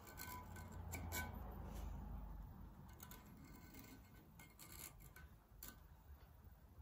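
Faint scratching and ticking of a metal scribe drawn around the edges of an exhaust gasket, scoring port outlines into a cast-iron Ford E7 cylinder head. A low rumble runs about one to three seconds in.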